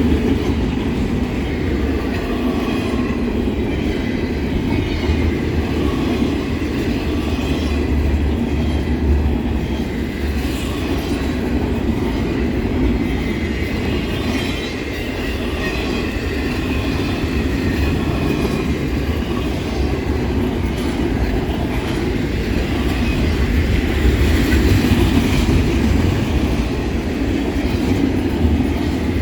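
Norfolk Southern freight train rolling past: a steady rumble of steel wheels on the rails with a clickety-clack over the rail joints and faint wheel squeal at times.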